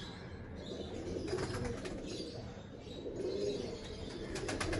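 Tippler pigeons cooing softly, with a brief run of quick clicks near the end.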